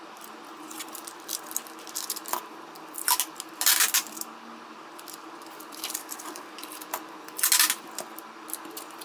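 Clear packing tape being handled and laid over cardboard: crinkling and clicking of the plastic tape, with two short rasping rips as tape is pulled off the roll, about three and a half seconds in and again near seven and a half seconds.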